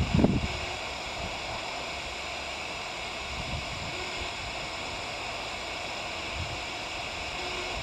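Steady static hiss of an airband radio receiver in a gap between transmissions, with a short low thump at the very start.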